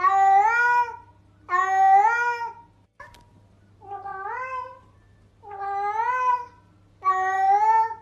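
Domestic cat meowing over and over, five meows about a second and a half apart, each rising in pitch and then holding before it stops; the fourth is quieter. A brief click about three seconds in.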